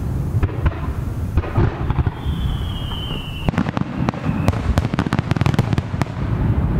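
Aerial fireworks shells going off over a steady low rumble. About two seconds in comes a thin whistle that falls slightly in pitch. From about three and a half seconds a rapid string of sharp pops and crackles follows as the shells burst.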